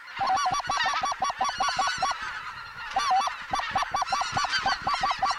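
Geese honking and clucking in a fast, regular run of short calls, about five a second, breaking off briefly about two seconds in before resuming.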